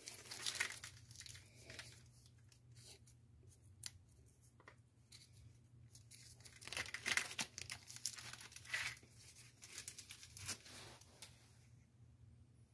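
Packaging being torn open and unwrapped by hand: crinkling and tearing of wrapping in irregular bursts, with a loud stretch about seven to nine seconds in.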